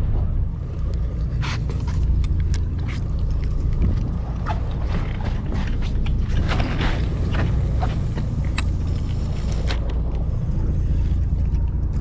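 Spinning reel and casting tackle being worked for a lure cast and retrieve: irregular mechanical clicks and creaks, densest in the middle, over a steady low rumble of wind on the microphone.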